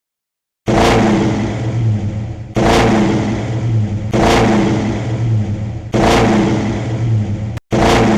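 Car engine revving in a run of short clips cut hard one after another, with a new clip starting abruptly every second or two after a brief silence at the start.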